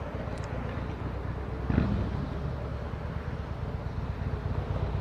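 Suzuki SV650S's V-twin engine running with a rapid low pulsing, a brief louder surge about two seconds in.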